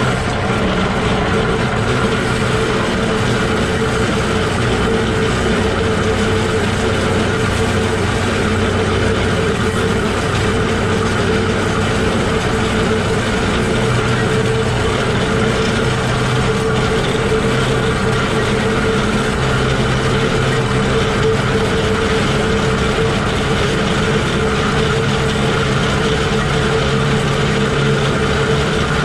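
Shay geared steam locomotive SL-31 running steadily, heard right beside a truck's bevel gears and wheels: an even mechanical running noise with a steady hum.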